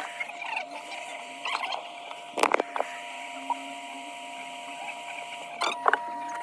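Light clicks and taps of small hand tools at a phone-repair bench over a steady high electronic whine, with a sharper knock about two and a half seconds in and a few quick clicks near the end.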